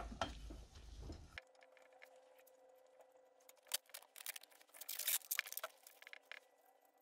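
Light clicks and rattles as hands handle a finned aluminium motor controller box against an electric scooter's metal frame and wiring. The clicks come in a dense flurry around the middle, over a faint steady hum.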